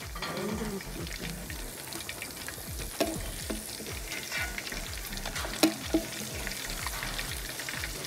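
Tortillas frying in red chile sauce and oil in a stainless steel pan, sizzling steadily, with a few sharp clicks of a metal fork and spatula against the pan as the tortillas are turned.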